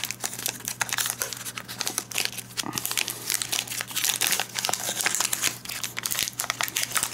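Foil wrapper of a Pokémon trading card booster pack crinkling and tearing as it is peeled open by hand, a dense run of crackles throughout.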